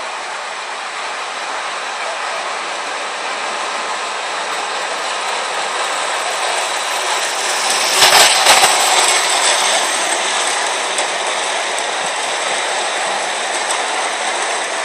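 Ace Trains O gauge A4 locomotive and its seven teak coaches running on three-rail track, a steady rolling rattle of wheels on rail that grows as the train approaches. It is loudest about eight seconds in as the locomotive passes close by, then eases a little as the coaches clatter past.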